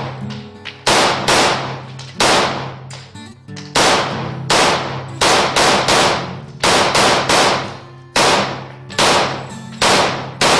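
JP Enterprises AR-15-type semi-automatic rifle fired about fifteen times in quick succession, the shots uneven in spacing and often in pairs about half a second apart, each echoing off the walls of an indoor range.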